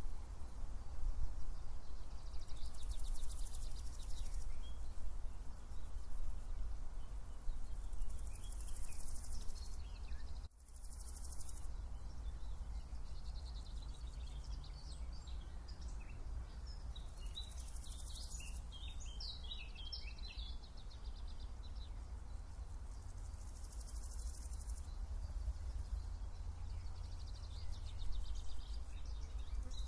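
Summer outdoor ambience: grasshoppers or crickets chirping in repeated spells of a second or two, and small birds twittering now and then, over a steady low rumble.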